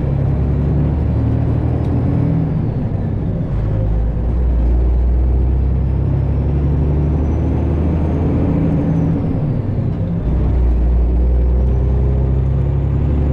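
Freightliner Classic XL semi truck's diesel engine running as the truck drives, heard from inside the cab. The low drone shifts in pitch with engine speed, with a faint high whine rising and falling above it.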